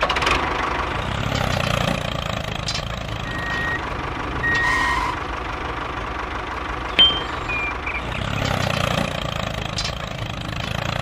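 Tractor engine running steadily with a low rumble, with a few short high beeps about three to five seconds in and a sharp click about seven seconds in.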